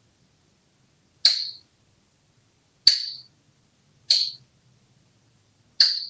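African grey parrot making four short kissing smacks, about a second and a half apart.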